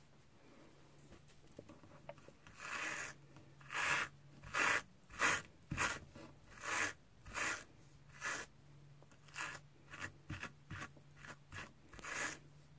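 Wire pet brush stroked repeatedly through long-pile faux fur, brushing out the matted fibres: a run of short scratchy strokes, about one or two a second, starting a few seconds in and coming faster toward the end.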